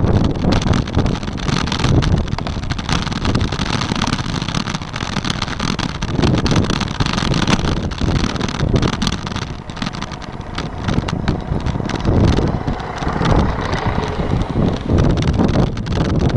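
Wind buffeting the microphone of a camera on a moving bicycle, gusting up and down, with frequent small knocks and rattles from riding over the road. A city bus passing close alongside near the end.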